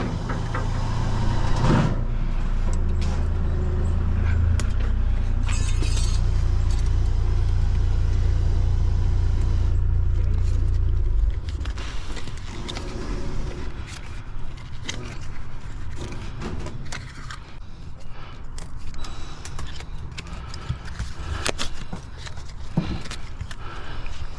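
An engine running steadily with a low hum that cuts off about eleven seconds in, followed by scattered light clanks and scrapes of metal handling.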